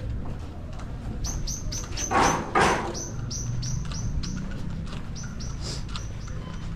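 A bird chirping repeatedly, short high chirps at about three a second, over a steady low hum. About two seconds in, two short loud bursts of noise sound about half a second apart.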